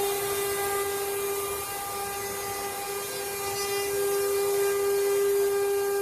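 CNC wood-carving router's spindle running with a steady whine over a hiss.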